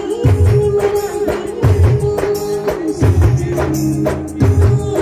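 Live band music played through a big sound system: a long held melody line over drums, with a deep bass-drum hit about every second and a half and busy stick-drum and jingle strokes between.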